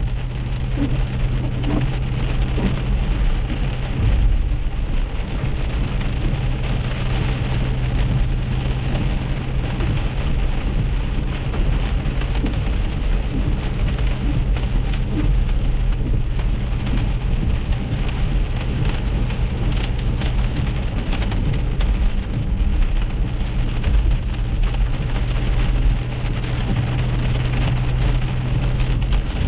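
Rain and hail pelting the car's roof and windshield, heard from inside the moving car as a dense patter of many small ticks, over a steady low hum of the car on the wet road.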